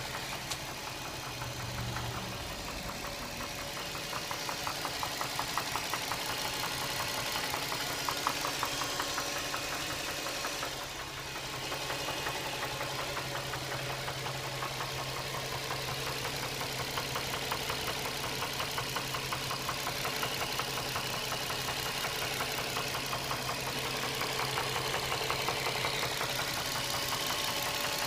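Nissan 350Z's 3.5-litre V6 idling with a rapid, even ticking over its steady hum. The owner places the tick at the back of the engine near the firewall, with the oil level fine and the cause unknown.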